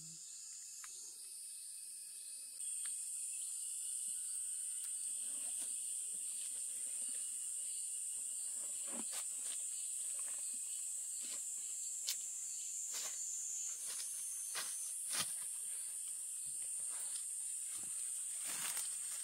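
Insects droning in a steady high-pitched chorus that gets louder a couple of seconds in, with scattered sharp clicks and knocks on top.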